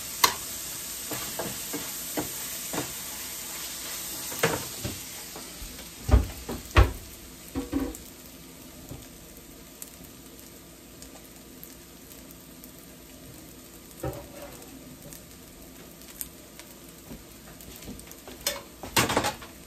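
Fried rice sizzling in a stainless steel sauté pan, with a metal spatula scraping and knocking against the pan during the first several seconds. The sizzle carries on more quietly once the stirring stops, broken by a few single knocks and a short clatter of cookware near the end.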